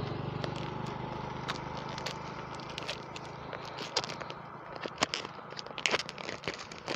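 Clear plastic shrink-wrap crinkling and crackling as it is picked at and peeled off a small cardboard product box, the crackles growing denser in the second half, over a low steady hum.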